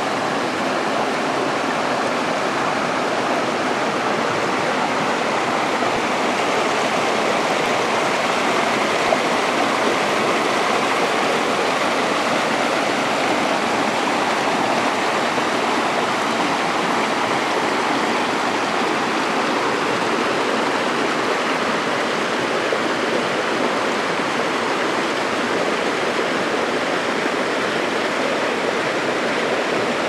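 A steady rush of stream water cascading over rocks and splashing into pools.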